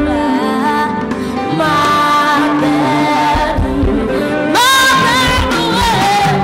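A young girl singing a song into a microphone, backed by a live band of keyboard, electric guitars and drums; about four and a half seconds in she holds a long note.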